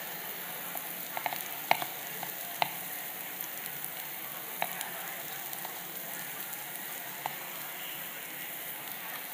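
Steady sizzle of onions, garlic and mirepoix frying in oil in a pan. Over it, a few sharp, irregular knife taps on a plastic cutting board as bell pepper is diced.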